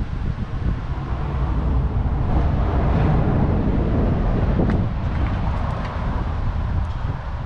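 Wind buffeting the microphone over a low rumble that swells for a few seconds and then eases.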